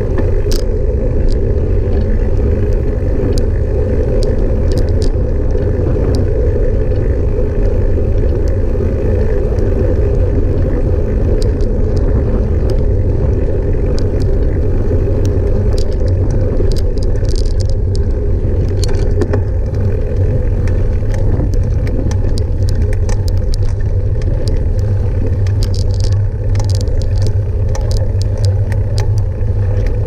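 Steady rumble and road noise of a small vehicle rolling along a concrete path, with scattered light clicks and rattles.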